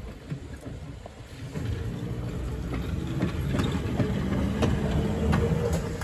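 Electric streetcar rolling past close by. A low rumble and hum grow louder about a second and a half in, with a series of sharp clicks from its wheels on the track.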